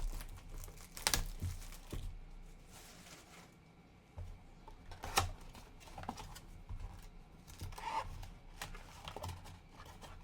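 Plastic shrink-wrap being torn and crinkled off a sealed trading-card box, in scattered short crackles, with light taps and rustles of handling cardboard.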